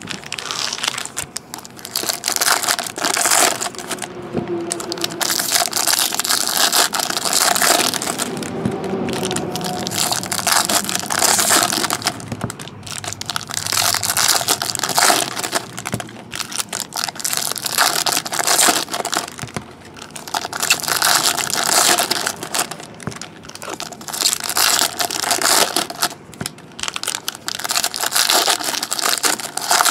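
Foil Topps Chrome jumbo trading-card packs being torn open and crumpled by hand, a run of loud crinkling, crackling bursts one after another.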